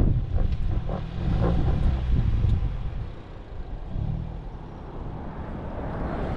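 Ford Bronco crawling slowly over a rutted dirt track: a low engine and drivetrain rumble with tyre noise, and a few clicks and crunches in the first half. The sound eases off about three seconds in.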